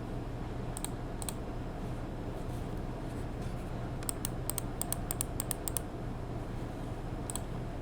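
Keystrokes on a FinalKey V65 R2 mechanical keyboard with lubed Akko Jelly Pink linear switches and ABS Cherry-profile keycaps on a PC plate. Two single key presses come first, then a quick run of about ten keys in the middle, and one more near the end, over a steady low hum.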